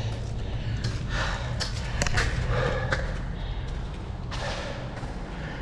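A man breathing hard while moving in a cramped spot, with several short scuffs and knocks of handling and movement over a steady low rumble.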